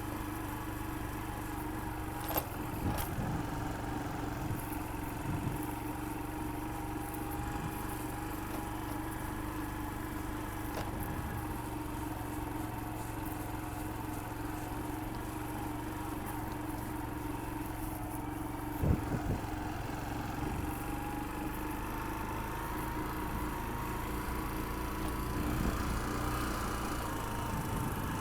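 Steady running of a motor or engine, an even hum with a few short knocks, the sharpest about 19 seconds in.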